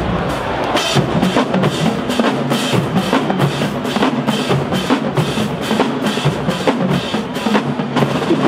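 HBCU-style marching band playing, led by its drumline: a steady beat of drum strokes about three a second, with bass drums and snare rolls over a low pitched backing.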